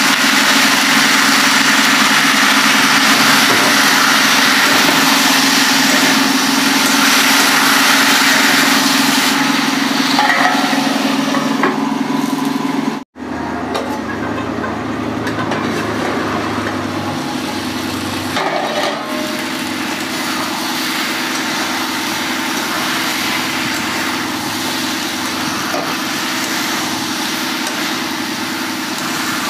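Vegetables frying in a steel kadai on a gas stove: a steady sizzling hiss, loudest in the first several seconds, over a constant engine-like hum. The sound drops out for an instant about 13 seconds in and comes back quieter, with the lid on the pan.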